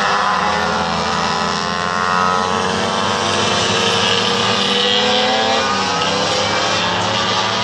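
A pack of racing motorcycles riding through a series of bends, several overlapping engine notes rising and falling as the riders rev through the corners.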